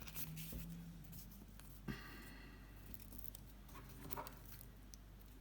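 Faint light clicks and rustling of double-sided tape being handled and cut into small pieces.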